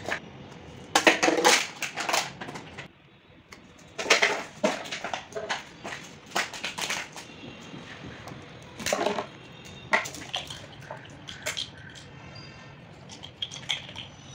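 Labrador chewing a clear plastic bottle, the plastic crackling and crunching in irregular bursts every few seconds.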